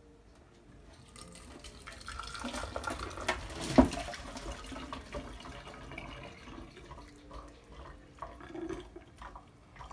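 Tea poured from a saucepan through a plastic strainer and funnel into a plastic bottle: a splashing pour that builds over the first few seconds, with one sharp knock near the middle, then thins to a broken trickle and drips.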